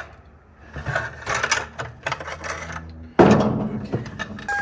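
Scattered metallic clicks and clanks of hands and tools working at a tractor's transmission fill plug and fluid pail, with one loud clunk a little after three seconds in that dies away over about a second.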